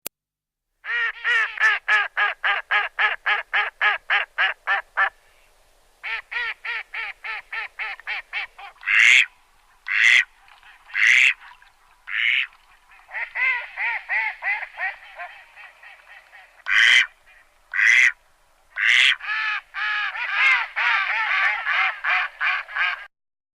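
Ducks quacking: quick runs of short quacks at about four a second, broken by several single louder quacks.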